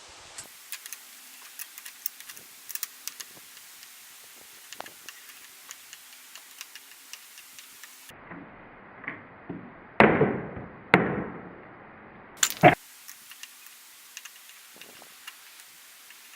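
Scattered light clicks and taps of hand tools and parts at a motorcycle's clutch lever, with two louder knocks that ring briefly about ten and eleven seconds in, then a sharp click.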